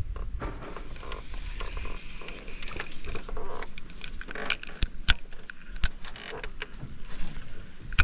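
Small spinning reel being cranked as a lure is retrieved, a light mechanical whir with handling rattles and several sharp clicks, the loudest about five seconds in and again near the end.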